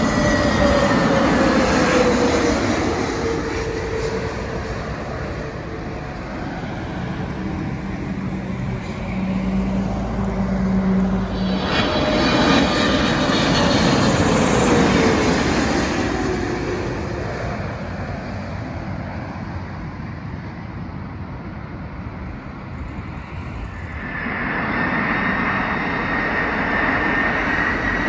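Jet airliners on approach, heard in three back-to-back passes. First an Airbus A321neo's engine noise passing overhead with a falling whine. About 12 seconds in, a louder pass by a Boeing 777-300ER's twin GE90 engines, its whine dropping in pitch as it goes over. Near the end, the steady high whine of an approaching four-engined Airbus A340-300.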